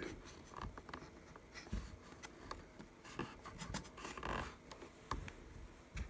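Faint handling noise: fingers pressing on and shifting laptop-style RAM modules seated in their sockets on an iMac logic board, giving scattered small clicks and brief scratching.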